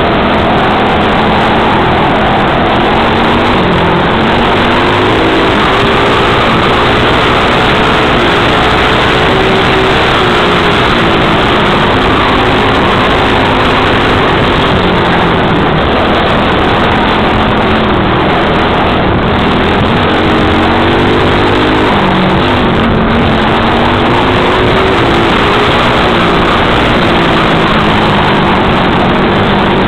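Small single-cylinder dirt bike engine running close up under a varying throttle, its pitch rising and falling as the bike speeds up and eases off along the trail. Heavy wind and riding noise lies over it.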